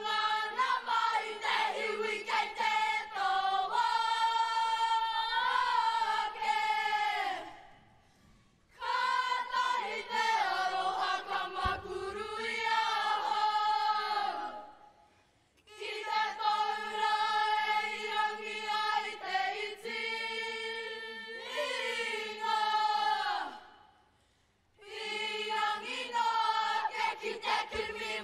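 A Māori children's kapa haka group singing a mōteatea, a traditional chant, in unison: long, slowly gliding melodic phrases, broken by three short pauses between phrases.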